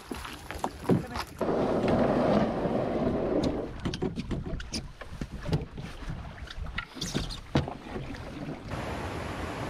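Open canoe pushed off a stony shore and paddled: a loud scraping rush from about a second and a half in, lasting some two seconds as the hull slides off, then scattered knocks of the paddle on the hull and paddle splashes.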